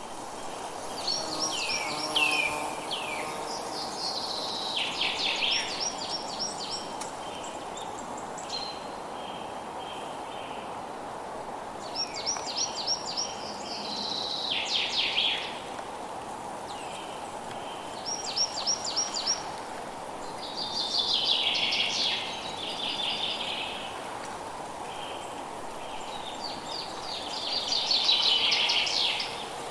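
Forest ambience: a songbird singing short phrases of fast trills and quick down-slurred notes, repeated every few seconds, over a steady background hum of insects.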